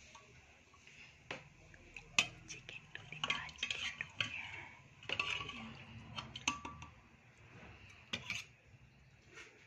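A steel ladle clinking and scraping against a stainless steel bowl and pot as soup is ladled out, in a series of short, irregular clinks.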